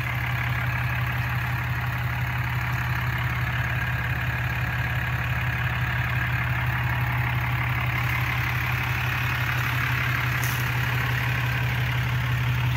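Ram 2500's 6.7 L Cummins inline-six turbo-diesel idling steadily.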